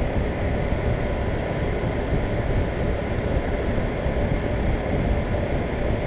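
Outdoor condenser fan of a 2001 York 2.5-ton central air conditioner running steadily on its own with the compressor not running, a steady rush of air from the fan. The compressor has failed to restart, which the owner links to a brief power flicker.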